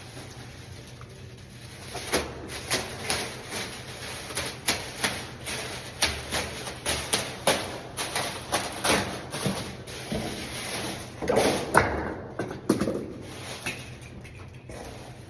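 Irregular clicks and knocks of hard objects being handled, several a second, the loudest about twelve seconds in.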